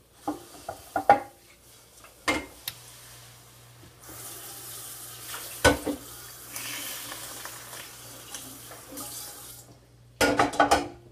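Kitchen tap running for several seconds, turned on about four seconds in and off shortly before the end. Dishes and utensils knock and clatter around it, most busily near the end.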